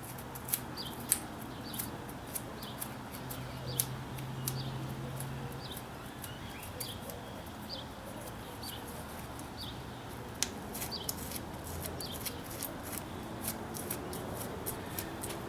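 Light scattered clicks and scrapes of a scuffing pad being worked over a glued patch on a bicycle inner tube, irregular with a few sharper taps. A small bird chirps over and over, about twice a second, through the first half.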